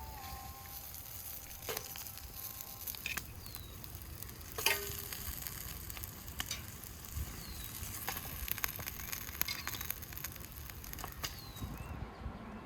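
Meat patties sizzling as they fry in hot fat, a steady hiss with scattered pops and crackles, cutting off sharply near the end.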